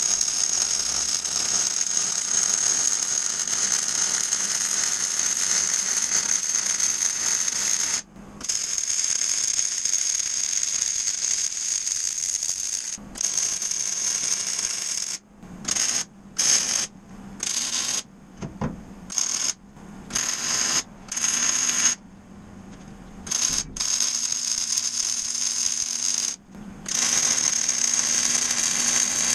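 MIG welding on steel strut channel: the arc's steady crackling sizzle in long runs of several seconds, then a string of short bursts of a second or so about halfway through, then long runs again.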